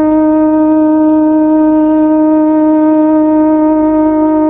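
Conch shell (shankha) blown in one long, steady, unwavering note.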